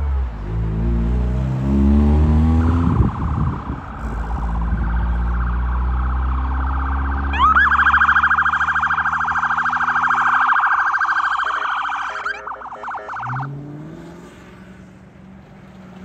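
Emergency vehicle siren: a steady siren tone comes in a couple of seconds in, switches after a rising sweep to a rapid warble about halfway through, and cuts off suddenly about three quarters of the way, over a heavy engine rumble. Near the end a vehicle engine revs up as it pulls away.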